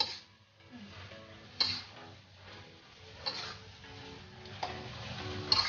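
Soft background music of short repeated notes, with a metal spatula scraping and knocking an aluminium wok about four times, each stroke a stir of a stir-fry.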